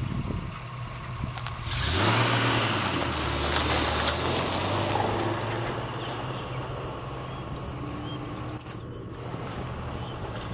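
A CPH railmotor approaching along the track with its diesel engine running. About two seconds in, it suddenly grows louder with a rushing noise over a deep steady note, then eases off over the next few seconds.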